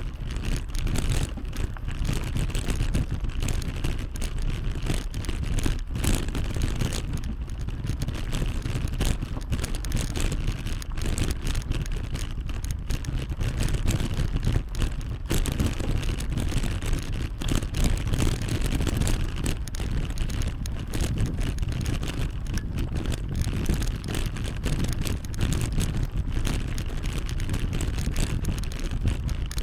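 Wind buffeting the camera microphone during a bicycle ride, a constant low rumble mixed with tyre and road noise.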